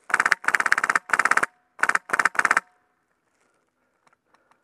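Polarstar HPA-engined A&K M249 SAW airsoft gun firing six short fully automatic bursts in quick succession within about two and a half seconds, each a rapid string of sharp cracks.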